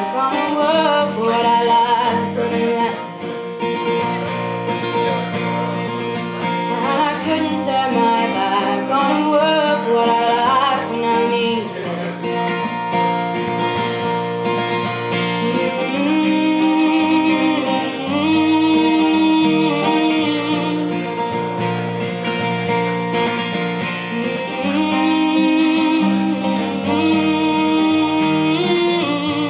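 A woman singing to her own strummed acoustic guitar, a solo live performance through a microphone, with long held notes at points.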